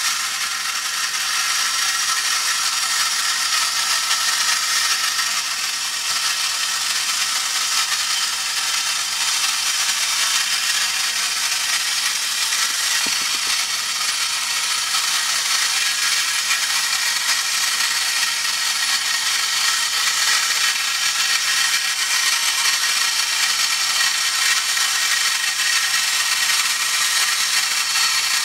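Clockwork spring motor of a 1950s Japanese Sparky Robot tin wind-up toy running as the robot walks: a steady mechanical whirr of gears inside the tin body.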